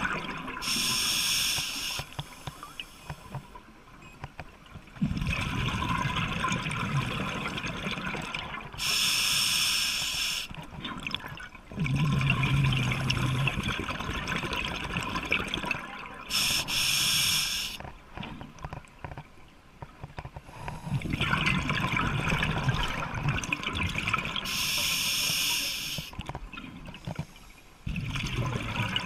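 Scuba diver breathing through a regulator, heard underwater: four breaths, each a short hiss of air drawn through the regulator followed by a few seconds of exhaled bubbles gurgling away.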